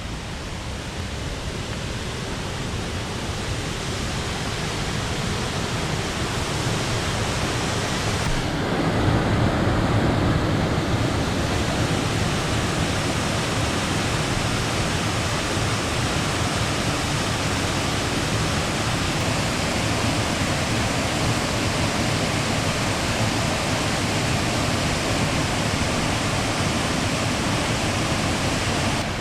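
Waterfall: a steady rush of falling water that grows louder over the first nine seconds or so, then holds level.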